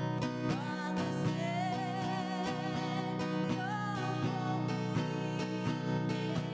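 Acoustic guitar strumming steadily while a voice sings a long, wavering melody line over it for the first few seconds. This is a hymn-style song with guitar accompaniment.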